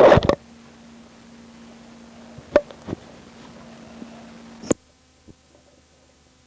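Background hum and hiss of an old home cassette recording, with a couple of faint knocks. About three-quarters of the way in a sharp click sounds, and the hum and hiss then drop lower.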